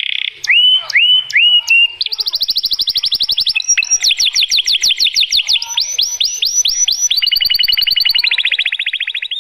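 Domestic canary singing a long, loud song. A few slurred rising notes give way to runs of very fast trills and rapidly repeated sweeping notes, each run changing to a new phrase every second or two.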